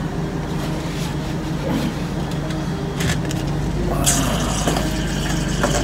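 Car engine idling steadily, heard from inside the cabin, with a short burst of noise about four seconds in.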